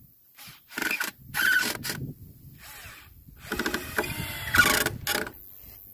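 Cordless drill run in several short bursts into a wooden frame, the longest and loudest run near the end.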